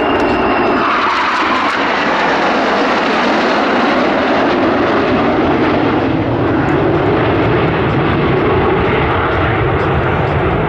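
Aircraft engines running loudly and steadily as a display aircraft passes, a dense rushing noise without pauses.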